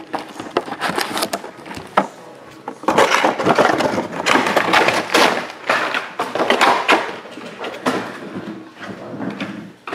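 Plastic shrink wrap and foil card packs crinkling and rustling as they are handled, in irregular bursts, loudest around the middle.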